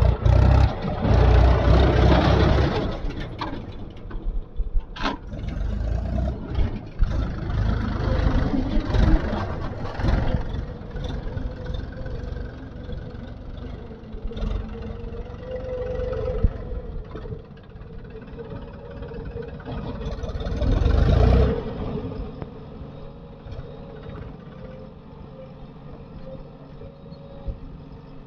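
Heavy diesel engine of earth-moving machinery running and revving up and down as it works, with a sharp knock about five seconds in. It rises to a loud rev near the start and again about three quarters of the way through, then settles to a steadier, quieter run.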